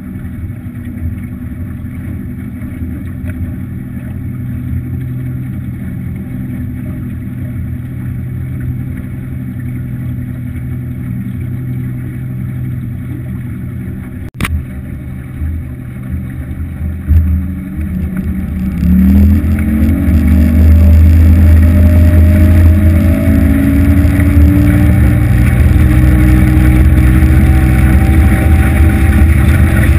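250 hp Evinrude outboard on an aluminium boat running slowly, then throttled up about two-thirds of the way through, its pitch rising until it runs loud and steady at planing speed. A single sharp click a little under halfway.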